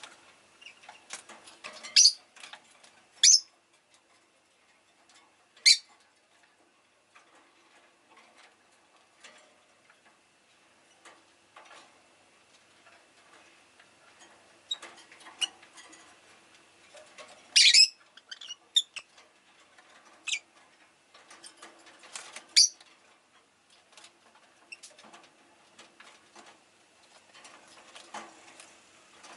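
Rosy-faced lovebird giving short, sharp, shrill chirps every few seconds, with soft ticks and scratches between the calls.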